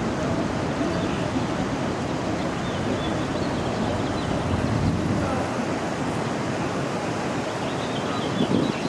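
Wind buffeting the microphone, a steady rushing noise over outdoor street ambience. The deep rumble eases after about five seconds.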